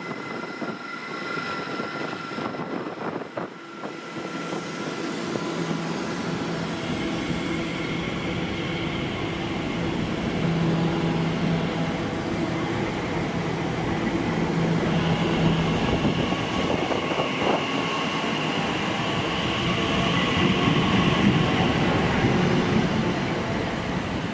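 An electric train running past, with a steady whine from its electric traction motors over the rumble of wheels on rail, growing louder as it nears.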